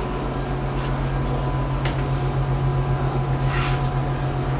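Inside a passenger train: a steady low drone from the train's motor and running gear, with a slight pulsing, a couple of faint clicks and a brief hiss about three and a half seconds in.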